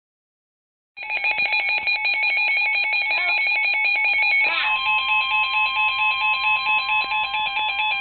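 Midland NOAA weather alert radio sounding its electronic alarm for a severe thunderstorm warning: a loud, fast-warbling multi-pitch tone that starts about a second in, with a steady lower tone joining about halfway through.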